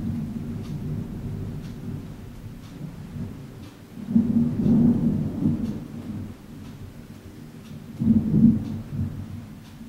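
Thunder rumbling low and continuous, swelling into two louder peals, one about four seconds in and another about eight seconds in.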